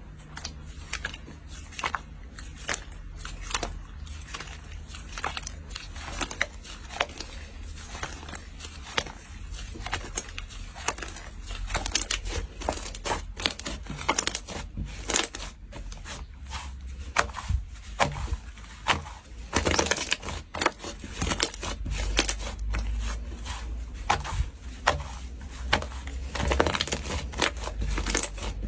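Slime being pressed, poked and stretched by hand, giving many small, sharp pops and crackles at an uneven pace, with denser crinkling stretches about two-thirds of the way in and near the end.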